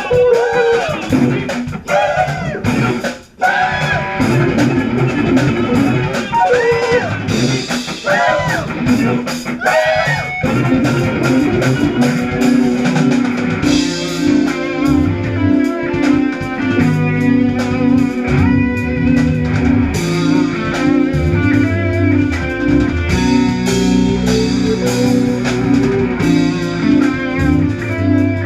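Jazz fusion band playing: guitar with bent notes over drums and bass, settling about twelve seconds in into a steady groove of repeated chords.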